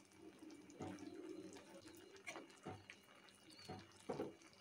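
Near quiet: a few faint clicks of a metal spoon against an aluminium pot as rice is stirred, and a faint low murmur about a second in.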